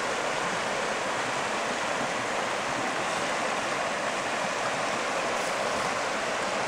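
Shallow stream flowing over a bed of cobbles and pebbles: a steady, even rush of water.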